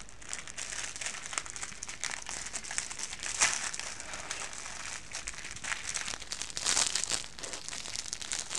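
Clear plastic Twinkie wrapper crinkling and crackling as hands work it open, a busy run of irregular crackles.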